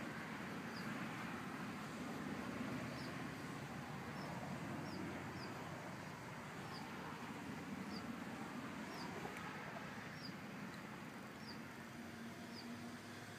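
A small bird chirping, one short high chirp about once a second, over a steady background rumble.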